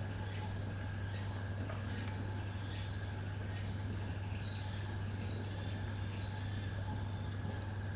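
Steady low hum with faint high-pitched chirps repeating about once a second.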